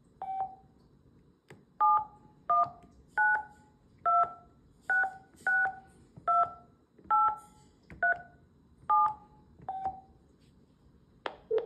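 Vintage DiamondTel car phone handset sounding DTMF keypad tones as a ten-digit phone number is dialed: ten short two-note beeps about one a second, each with a faint key click. A single-note key beep comes just before and just after the digits, and a brief sharp click follows near the end.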